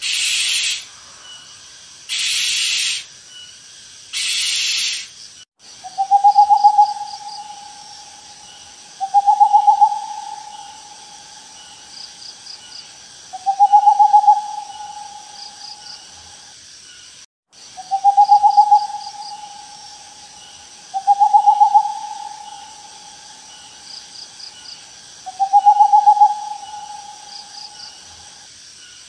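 Owl hooting: six long hoots at one steady pitch, each about a second and a half with a quavering start, spaced about four seconds apart. Before them come three harsh hissing screeches, each under a second. Insects chirp faintly underneath.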